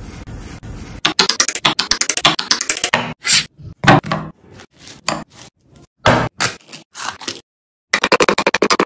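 Food-prep sounds: a banana being peeled, then fast runs of sharp taps and separate knocks as banana pieces drop into a glass bowl and into a plastic food processor bowl.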